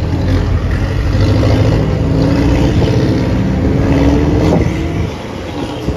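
Porsche 718 Cayman's engine and exhaust accelerating, the pitch climbing steadily for a couple of seconds, then dropping away as the driver backs off about four and a half seconds in.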